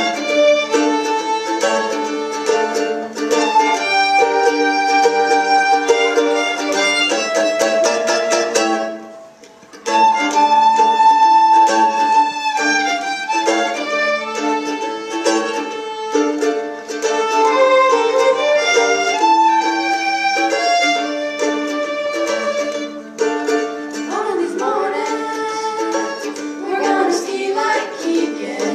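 Fiddles and a mandolin playing a tune together. It breaks off briefly about a third of the way through, then starts again.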